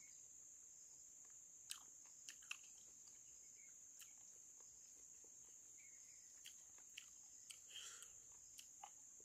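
Faint, steady high-pitched drone of insects chirring, with a few scattered soft clicks and taps.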